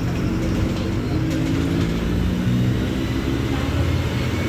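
Mercedes-Benz OF-1721 Bluetec 5 bus diesel engine running steadily while the bus is under way, its engine note shifting slightly in pitch about halfway through.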